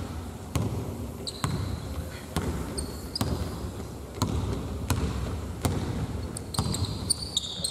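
A basketball being dribbled on a hard court, a bounce about once a second, with short high squeaks that come more often near the end.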